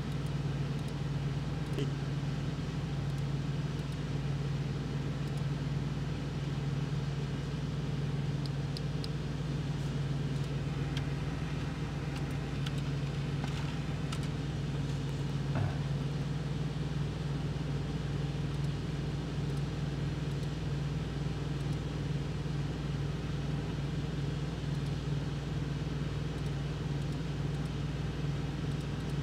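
Idling engine's steady low hum, heard from inside a truck's sleeper cab, with a few faint clicks partway through.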